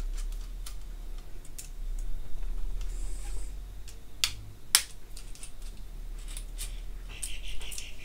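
Small metal clicks and taps from the die jaws of a ratchet crimping tool as they are unscrewed with a hex key and removed, with two sharper clicks a little past the middle.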